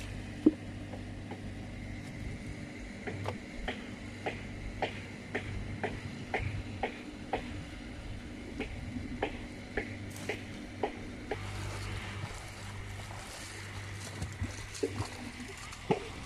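Short splashes and sloshes of shallow river water, about two a second for several seconds, as a person wades and lifts a bamboo-framed mesh fish trap out of the water, over a steady low hum.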